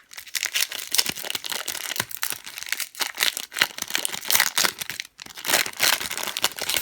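Foil wrapper of a Pokémon TCG booster pack being torn open and crinkled by hand, a dense run of crackling rustles with a brief pause about five seconds in.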